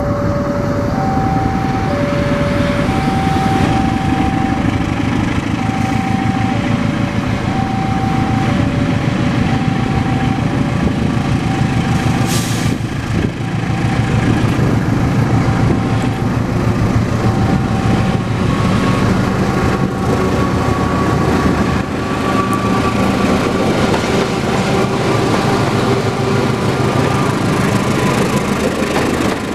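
A KAI CC206 diesel-electric locomotive runs past hauling a train, with a steady heavy drone from the engine and the moving train. Over it, a level-crossing warning signal alternates between two tones until about two-thirds through. A faint rising whine comes in near the end.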